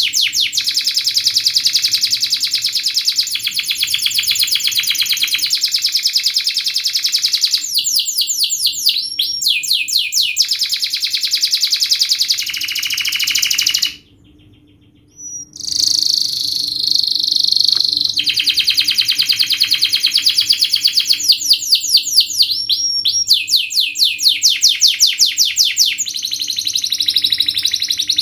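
Domestic canary singing a long, fast song of tight, rapid trills, runs of quickly repeated high notes that change pattern every second or two. It breaks off for about a second and a half near the middle, then starts again.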